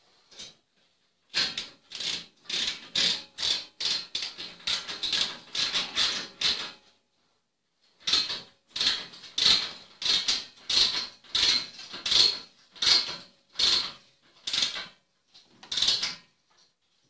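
Hand tool scraping a flaking plaster wall in repeated rasping strokes: two to three a second at first, then a pause of about a second, then slower strokes.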